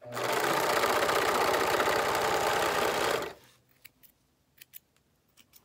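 Sewing machine running at speed for about three seconds, then stopping. A few faint clicks follow.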